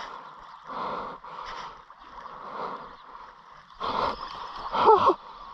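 Footsteps squelching and splashing on wet sand at a walking pace, roughly one to two a second, getting louder about four seconds in. A short vocal exclamation comes near the end.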